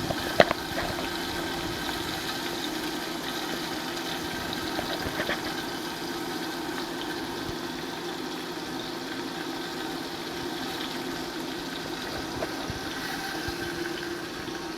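Chicken sizzling in a cast iron dutch oven heated on an induction cooktop, over the steady hum of the cooktop's cooling fan. There is one sharp click about half a second in.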